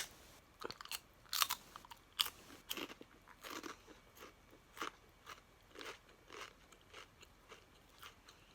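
Close-up crunching and chewing of a crisp bunny-shaped Japanese rice cracker, in irregular crunches about one or two a second, louder at first and softer toward the end.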